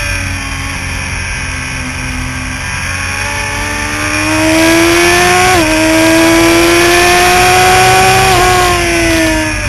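Sport motorcycle engine at racing speed, recorded on the bike. The revs fall and stay low as the rider rolls off through a corner, then climb again with a short dip about five and a half seconds in, and drop near the end, all over heavy wind rush on the microphone.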